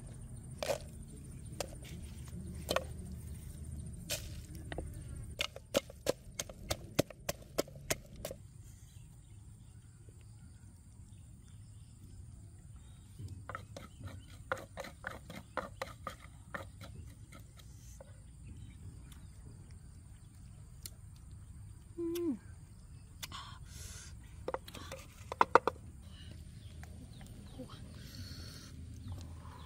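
Pestle pounding chili peppers in a clay mortar: runs of quick knocks and taps, with scattered single clicks from handling food. A low steady rumble lies under it throughout.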